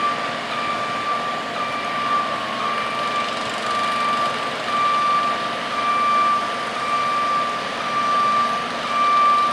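Construction vehicle's reversing alarm beeping about once a second, with truck machinery running underneath.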